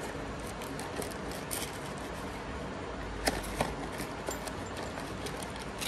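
A few light clicks of parts being handled over a steady background hiss.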